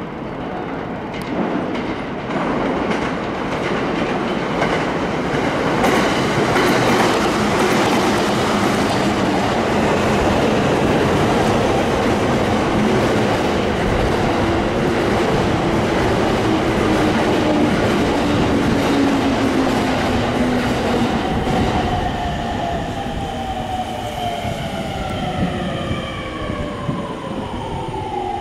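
An electric commuter train running through the station on the Sotetsu line. Its noise grows louder over the first few seconds and stays loud. From a few seconds before the end, several tones fall steadily in pitch.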